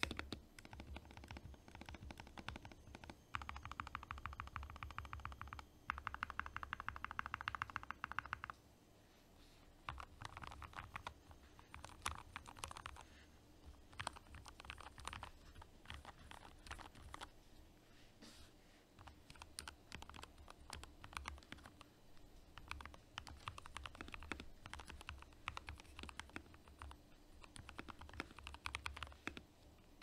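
Typing on a NovelKeys NK65 65% custom mechanical keyboard with lubed Gateron Milky Yellow linear switches and PBT keycaps, as a keyboard sound test. Slower keystrokes at first, then two fast, dense flurries from about three to eight seconds in, a short lull, and steady typing after that.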